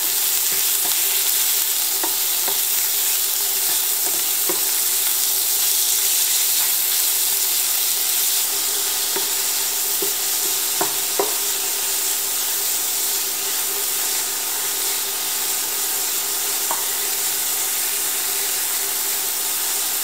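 Ground pork and garlic sizzling in oil in a small frying pan as they are stir-fried with a wooden spatula. The spatula knocks against the pan now and then.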